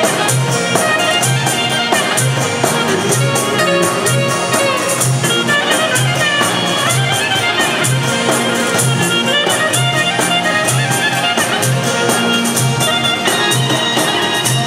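Live Albanian wedding folk music: a clarinet plays a busy melody over a keyboard accompaniment with a steady low beat, and a hand-played frame drum with jingles adds a rattling rhythm.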